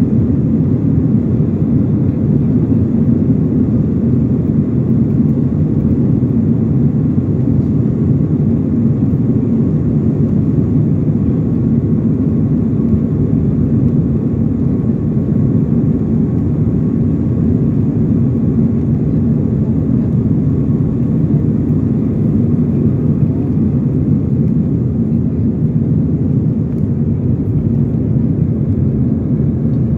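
Jet airliner's engines at takeoff thrust, heard inside the cabin as a loud, steady low rumble through the takeoff roll and initial climb.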